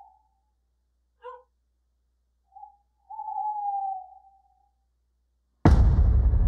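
An animal's cries in the night: short calls, then a longer, slightly falling one. Near the end, a sudden loud hit opens ominous horror film score.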